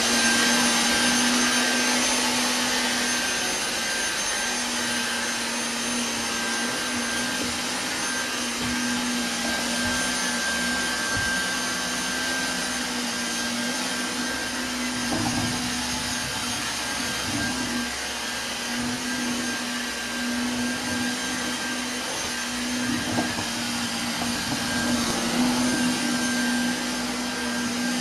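Vacuum cleaner running steadily, a loud whooshing noise with a low hum and a high whine held at one pitch; a few soft knocks midway.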